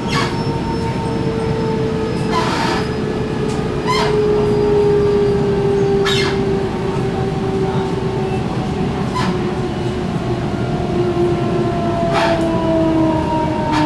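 Ride noise inside a carriage of a Sydney Trains Waratah A-set double-deck electric train on the move: a steady rumble of wheels on rail, with the electric traction motor whine falling slowly in pitch as the train slows. A few sharp knocks come through it.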